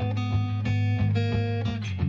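Background music led by a plucked guitar, notes changing every fraction of a second over a steady low line.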